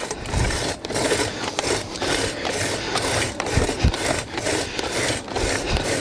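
Hand-turned 12-inch post hole reamer scraping and rasping as its cutters shave soil from the walls of a 6-inch pilot hole, with small irregular scratches and knocks throughout.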